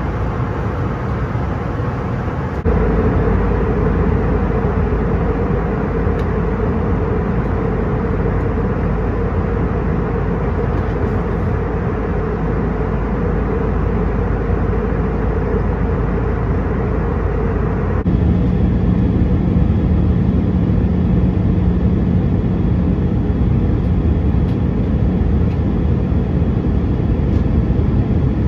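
Steady roar of airflow and jet engine noise inside an Airbus A319 cabin in flight. It changes abruptly twice as the footage cuts between clips, and the last part carries a steady low hum.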